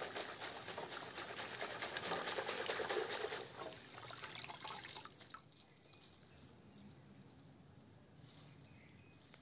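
Crackling, rustling and trickling of damp soil, roots and leaves as a peanut plant is pulled out of a metal bucket, soil falling away from the pods. It dies down about halfway through.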